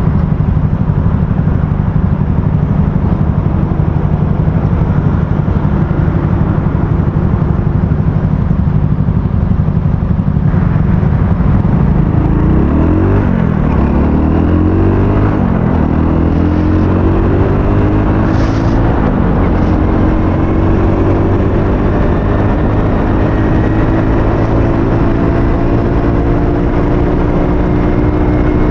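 Aveta Ranger 110 motorcycle's small single-cylinder engine heard from the rider's helmet while riding. It drones steadily for about ten seconds, then its pitch rises and drops several times as it works through the gears, then climbs slowly as the bike gathers speed.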